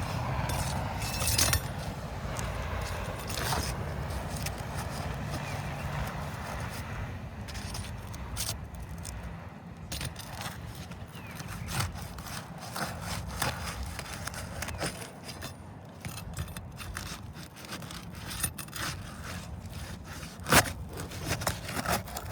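Roof shingles being worked loose and lifted with a side-to-side motion: a continuous rough scraping and rubbing, broken by many sharp clicks and crackles as the brittle shingles pull apart, with a few louder cracks near the end.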